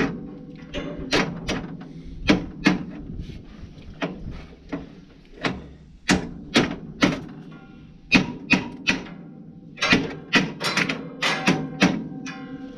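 Hammer or hand tool striking metal on a round baler's pickup, repeated sharp strikes in irregular pairs and small groups, each with a short ring, while the pickup teeth are worked loose or set in place.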